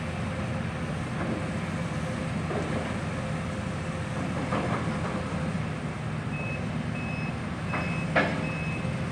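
Heavy demolition machinery running steadily, with a backup alarm that starts beeping about two-thirds of the way in, evenly spaced short beeps. There is a single sharp clank near the end.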